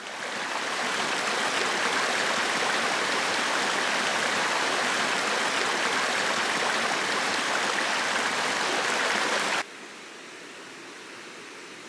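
Shallow creek water rushing and splashing over rocks, a steady rush that fades in at the start. Near the end it cuts off suddenly, leaving only a faint steady hiss.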